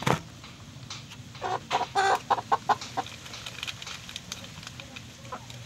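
Chicken clucking: a quick run of short calls about a second and a half in, then a few fainter ones.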